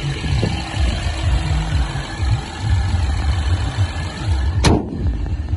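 BMW 316i's engine idling under the open bonnet, with an uneven low rumble of wind on the microphone. One sharp bang about three-quarters of the way through, the bonnet being shut.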